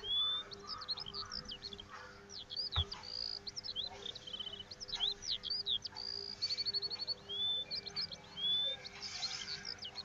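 Small birds chirping and twittering throughout, a run of quick high calls, short sweeps and brief trills.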